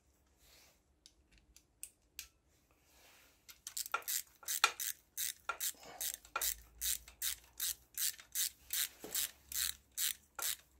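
Socket ratchet wrench clicking in a quick, even run, about three clicks a second, as the cam cap bolts on a Kawasaki Z1100 cylinder head are run down. A few faint metal clicks come before it.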